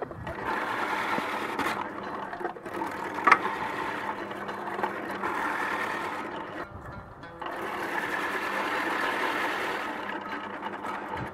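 Electric vegetable shredder with a lever pusher grating carrots into shreds, its motor and blade running under load as carrots are pressed through the feed tube. There are two long stretches of grating with a short break about six and a half seconds in, and a sharp click about three seconds in.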